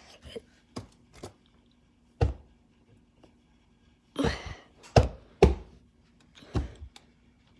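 Irregular knocks and thunks of a refrigerator being handled, with the loudest about two seconds in and a close pair around five seconds in, over a faint steady hum.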